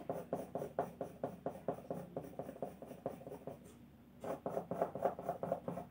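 Soft graphite pencil scratching on drawing paper in quick short strokes, several a second, shading hair. The strokes pause briefly about two-thirds of the way in, then resume.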